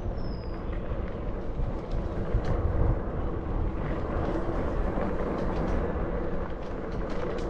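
Fat-tire bike being ridden along a trail: a steady rumble of the tyres rolling, with scattered clicks and rattles.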